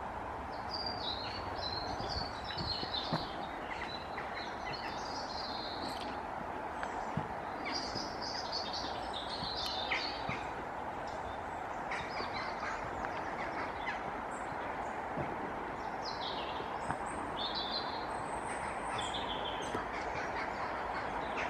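Small songbirds chirping and twittering in short repeated phrases over a steady rush of river water.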